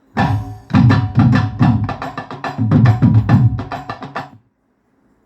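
A song with a steady drum beat and heavy bass, played through a Sweton 8-inch 100W 8-ohm woofer mounted in a shallow speaker box as a bass-response test. It stops abruptly about four seconds in.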